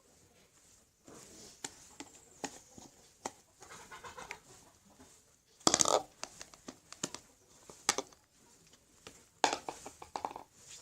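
Spoon scraping and tapping inside a plastic pot as slime is scraped out: a scatter of short clicks and scrapes, with louder clusters about six seconds in and near the end.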